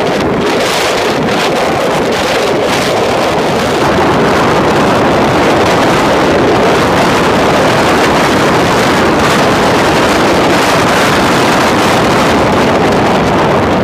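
Wind rushing over the microphone of a motorcycle-mounted camera at highway speed, mixed with road and engine noise, with a few sharper gusts in the first seconds.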